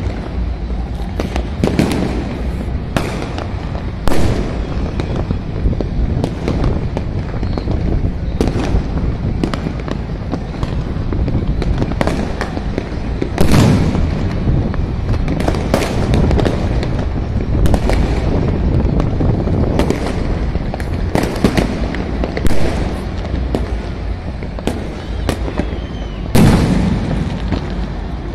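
Firecrackers and fireworks going off all around: many sharp bangs at irregular intervals, a few louder, closer ones standing out, over a continuous background din.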